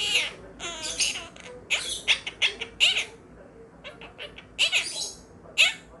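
Quaker parrot chattering: quick bursts of short, high chirps and squawks, with a brief lull about midway.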